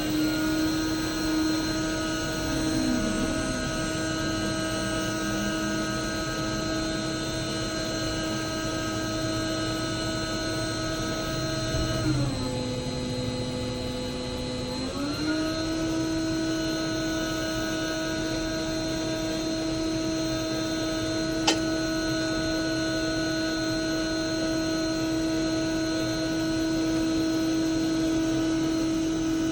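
Heavy machine running with a steady whine made of several pitched tones. About halfway through the pitch sags for roughly three seconds, as under load, then rises back. A single sharp click comes about two-thirds of the way in.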